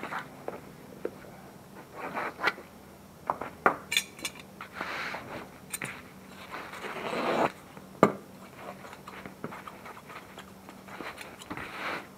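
A sheet of upholstery vinyl being handled and cut with scissors on a wooden workbench: scattered clicks, rustles and short scrapes, with a longer scraping stretch that builds from about five seconds in and stops sharply about two and a half seconds later.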